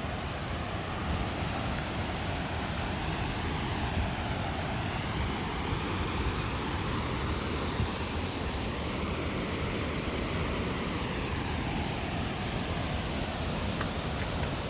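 Steady rushing roar of water pouring over Harajiri Falls, a wide curtain waterfall.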